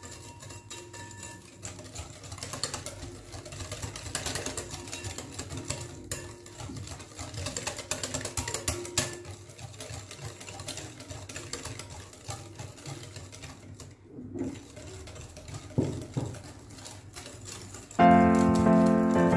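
Metal hand whisk stirring cake batter in a glass bowl, a fast run of scraping and small taps against the glass as cocoa powder is mixed in. Louder background music comes in near the end.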